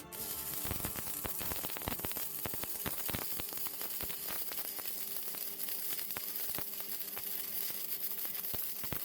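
Homemade metal lathe turning with the tool cutting metal: a steady hiss and scattered crackles over a faint motor hum.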